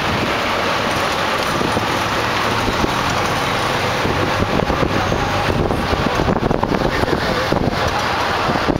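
Steady outdoor street noise: a constant rumble like road traffic, with wind buffeting the microphone.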